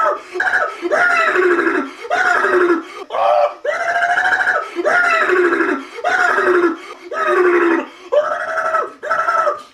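A man wailing in pain in a long string of cries, about one a second, each rising and then dropping in pitch.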